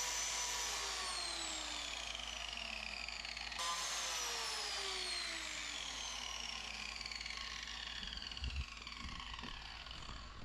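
Biscuit joiner's motor whining up to speed and then falling in pitch as the blade coasts down, twice, the second run starting abruptly a little over three seconds in. A few light knocks near the end.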